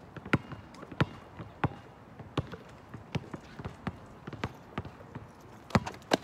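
Basketball being dribbled on an asphalt court: sharp bounces in a steady rhythm about every two-thirds of a second, with two loud bounces close together near the end.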